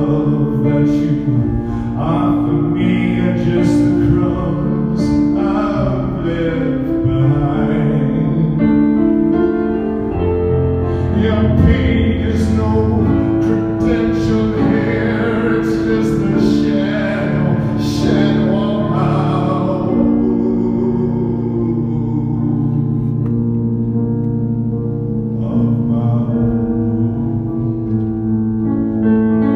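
Live piano accompanying a man singing a slow song. The voice stops about twenty seconds in, leaving the piano playing alone.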